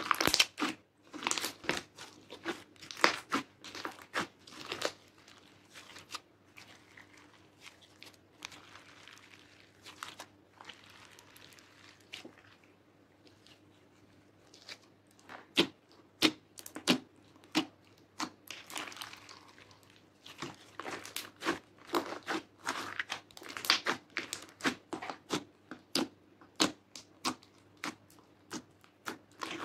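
Hands squishing, pressing and kneading soft, sticky slime studded with small beads, giving clusters of wet pops and crackles. The crackling thins out for several seconds partway through, then comes back densely.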